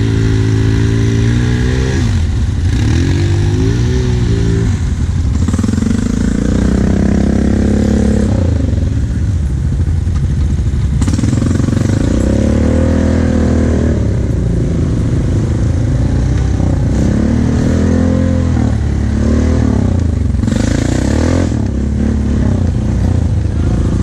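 ATV engine running close by, its pitch rising and falling several times as the throttle is opened and eased off.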